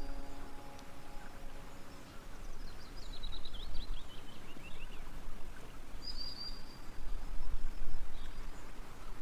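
A bird calling over a steady background hiss: a quick descending run of chirps about three seconds in, and a short chirp a little after six seconds. The last held notes of background music fade out in the first two seconds.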